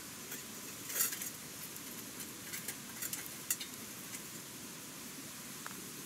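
Scattered light clicks and clinks, a cluster about a second in, over a steady hiss.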